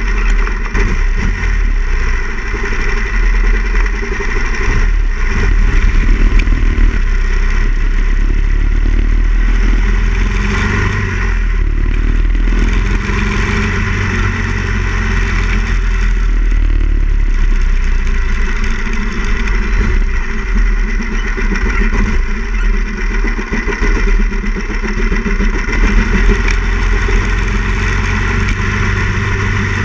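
Harley-Davidson Ironhead Sportster XL1000's air-cooled V-twin engine running under way, heard from on the bike, its note rising and falling with the throttle several times.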